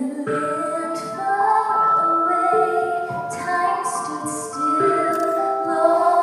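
Vocal music: female voices singing held notes in harmony.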